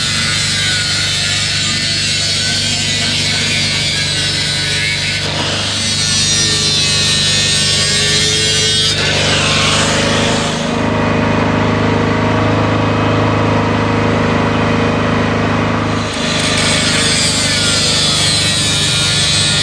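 An angle grinder with a cut-off disc cutting through metal exhaust pipe: a steady motor whine under the harsh hiss of the disc in the metal. The cutting hiss eases off for a few seconds in the middle and returns near the end. Background music plays along.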